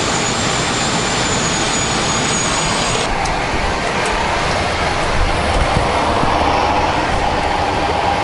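Steady rushing noise of a parked Boeing 777-200 with its auxiliary power unit running, with a little more low rumble in the second half.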